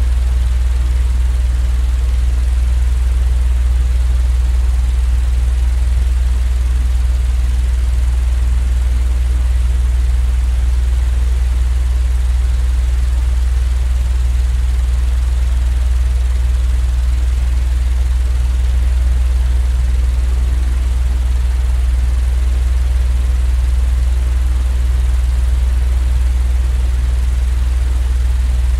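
Electric fan running with a steady low hum and a faint airy hiss, unchanging throughout, used as sleep noise.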